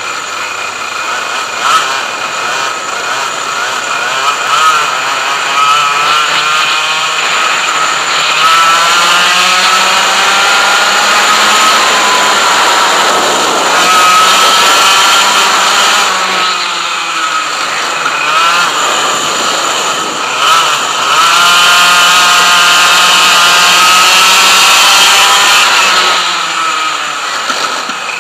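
100cc two-stroke racing kart engine running hard, heard close from the kart itself. The pitch climbs as it accelerates along the straights, drops off twice as it lifts for corners, around the middle and again near the end, and climbs again between.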